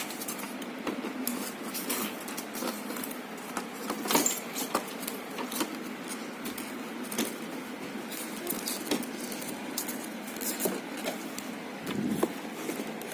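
Irregular small clicks and rattles of a deep freezer's fan and switch parts being handled, over a steady low hum.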